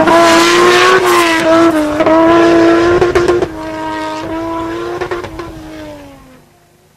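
Nissan Patrol's RB25DET 2.5-litre turbocharged inline-six held at high revs, loud and steady for about three and a half seconds. It then eases off, the note sinking in pitch and fading out about six and a half seconds in.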